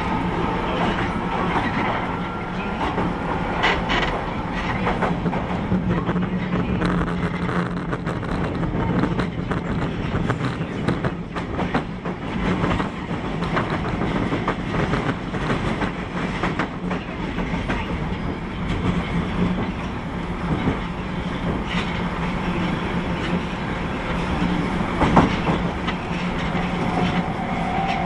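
Osaka Metro 31 series subway train running on the line: a steady hum and rumble of wheels on rail with clickety-clack and frequent short clicks, a louder click near the end.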